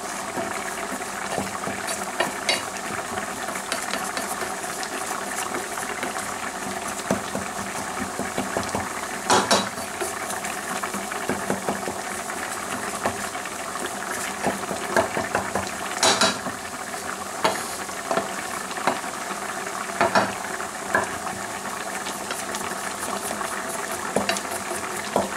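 A flour roux being stirred in a metal pan over the heat, with a steady sizzle. The spoon scrapes and clicks against the pan, with a sharper knock now and then.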